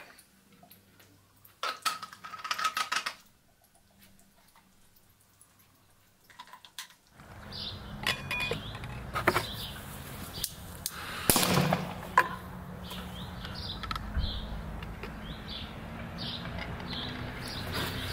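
Oxyhydrogen (HHO) gas from a small electrolysis generator bubbling through a tube into an upturned water-filled bottle, with a burst of rapid gurgling about two seconds in. Then a garden background with birds chirping and a few sharp clicks.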